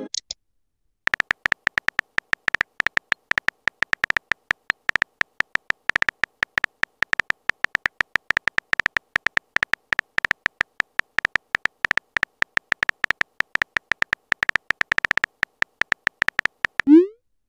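Texting-app keyboard typing sound effect: a rapid, irregular stream of short, high clicks, several a second, as a message is typed letter by letter. It ends near the close with a short rising swoop as the message is sent.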